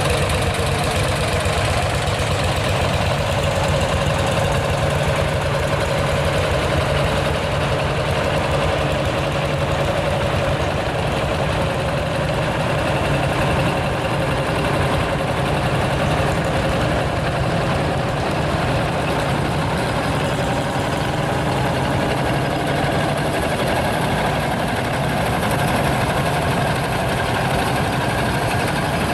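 Several single-cylinder two-stroke diesel tractors chugging past one after another, their slow single-cylinder knock steady and unbroken.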